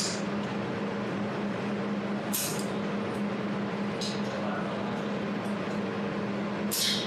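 Jewelry laser welding machine running with a steady hum over a hiss, broken about three times by short, high-pitched bursts.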